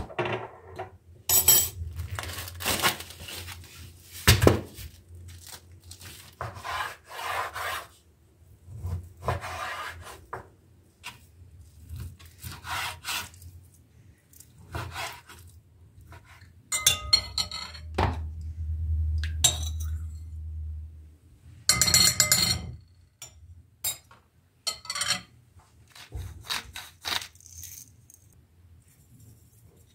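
Kitchen food-prep sounds: utensils scraping and rubbing against bowls and boards, with occasional clinks of dishes, in a run of separate short strokes with pauses between them.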